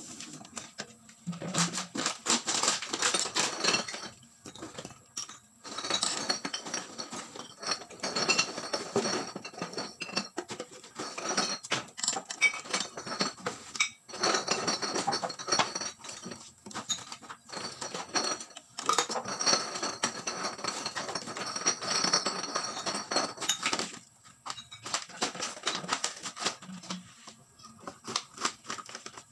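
Plastic bottles and containers crackling and clattering as they are handled and packed into a sack, in long bursts with short pauses, growing sparser near the end.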